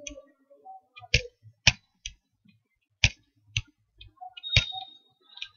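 Computer mouse clicking: about seven sharp, irregularly spaced clicks, with a faint high tone briefly near the end.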